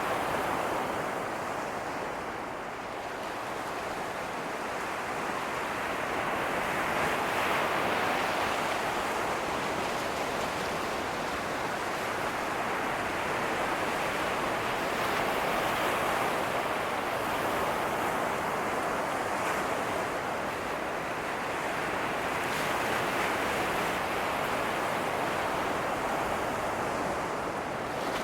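Ocean surf breaking and washing ashore in a continuous rush that swells louder and eases back every several seconds as sets of waves come in.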